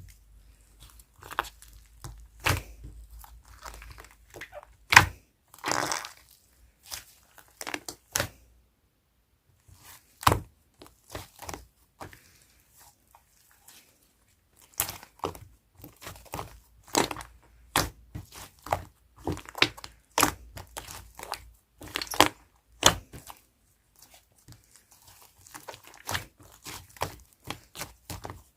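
Yellow slime being pressed and played with by hand, giving irregular sharp crackling pops and clicks, with a quieter lull about halfway through.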